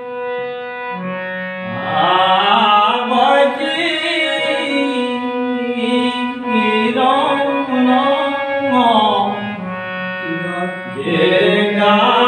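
A man singing a Kumaoni nyoli folk song solo, in long drawn-out phrases whose pitch slides and wavers in ornaments.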